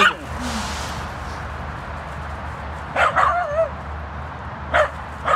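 A dog yipping in short, high barks during rough play: one at the start, a quick run of two or three about three seconds in, and another near the end.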